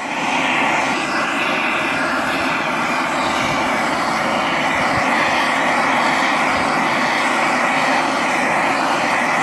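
Handheld gas torch running with a steady roar as its flame heats a ceramic melting dish to melt borax flux into a glaze.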